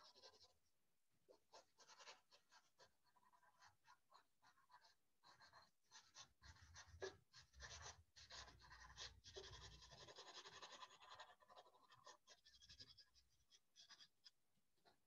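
Faint scratching of a pencil on sketchbook paper: many short, irregular strokes, running together into steadier shading in the middle.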